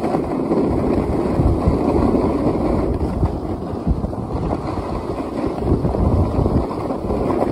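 Wind rumbling on the microphone of a camera moving fast down a ski slope, mixed with the hiss and scrape of edges carving over packed snow. A steady low rumble with no distinct separate sounds.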